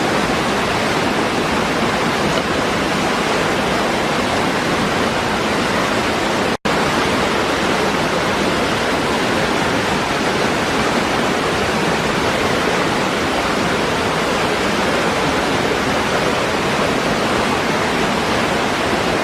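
Waterfall pouring over rocks: a steady, even rush of water. The sound cuts out for a split second about six and a half seconds in.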